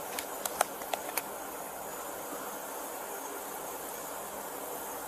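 Steady hiss of background noise, with a quick run of five or six sharp clicks or taps in the first second or so.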